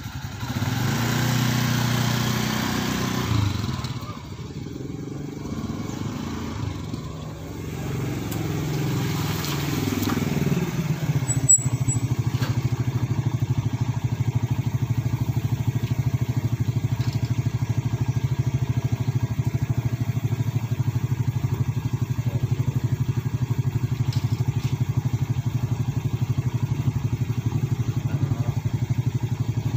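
Small motorcycle engine idling. For the first ten seconds or so its note wavers, and after a sharp click about eleven seconds in it idles very evenly.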